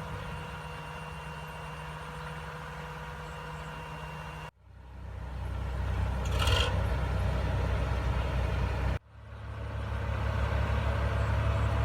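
Heavy diesel engine of farm machinery running steadily with a low drone. The sound cuts off abruptly twice and fades back in each time. A brief higher-pitched sound comes just after the middle.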